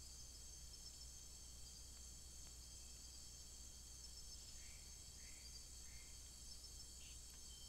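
Faint, steady high-pitched chorus of night insects in the rainforest, with a low steady hum underneath. A little past the middle come three short soft chirps about half a second apart, and one more higher chirp near the end.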